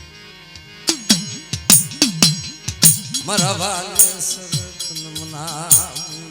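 Gujarati folk devotional music: sharp drum strokes, several sliding down in pitch, with a wavering melody line that comes in about three seconds in and again near the end.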